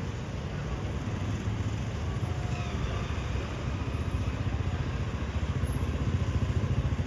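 Engine running steadily, with a low rumble that grows louder over the second half.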